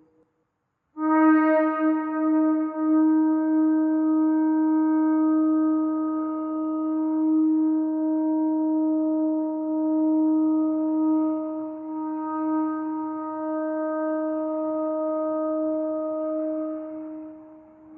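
Ram's-horn shofar blown in one long blast on a steady note, starting about a second in and dying away near the end.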